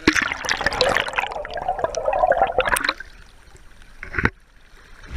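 River water splashing and gurgling over a camera mounted on a landing net as the net is scooped through the current, dense and loud for about three seconds. It drops away as the net comes up, with one short splash about four seconds in and a sharp knock at the end.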